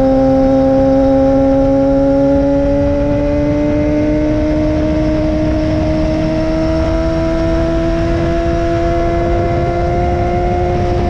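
Yamaha R6's 600cc inline-four engine running through a LeoVince full-system exhaust, pulling steadily in one gear, its pitch climbing slowly and evenly with no gear change.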